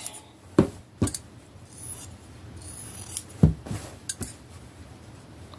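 Scissors snipping through a shirt sleeve along its seam: about four separate sharp snips, spread over several seconds.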